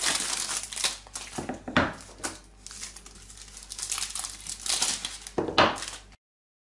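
Foil and paper wrappers of chocolate bars crinkling and tearing as the bars are unwrapped by hand, with two sharper, louder rustles. The sound cuts off abruptly near the end.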